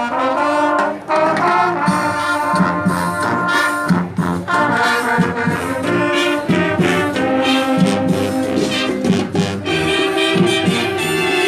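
Latin brass marching band playing, with trumpets and trombones sounding chords over drums.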